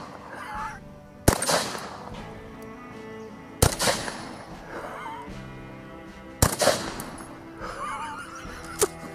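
Shotgun fired three times, two to three seconds apart, each shot followed by a short echo; the shells are loaded with X-Acto knife blades.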